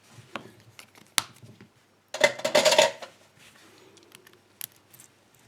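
Small metal parts being handled: a few sharp clicks, then a brief scraping clatter about two seconds in that lasts under a second, followed by faint ticks.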